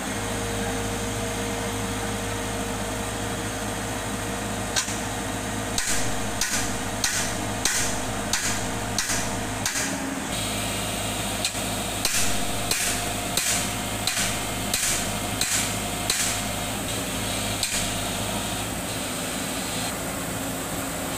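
Repeated sharp hammer blows, about three every two seconds, starting about five seconds in and stopping a few seconds before the end, with a short break in the middle. Under them a diesel engine runs steadily at idle.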